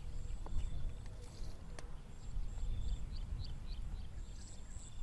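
Wind rumbling on the microphone, with faint, short high chirps repeating in the background and a single sharp click about two seconds in.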